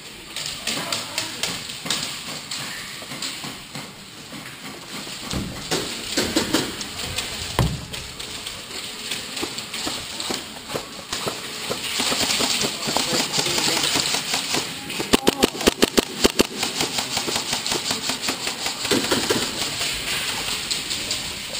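Airsoft player moving, with irregular footsteps and gear rustling. About two-thirds of the way through comes a rapid string of about a dozen sharp airsoft gun shots lasting a second and a half.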